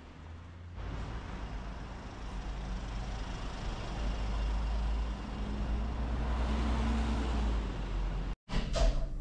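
Street traffic: a vehicle's engine and tyres growing louder as it passes close, a steady low rumble with a faint hum. The sound cuts out for an instant near the end, then resumes.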